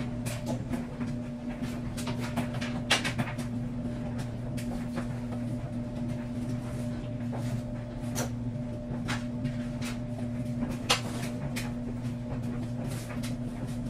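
Scattered knocks and clicks of laundry being handled and sorted, over a steady low hum.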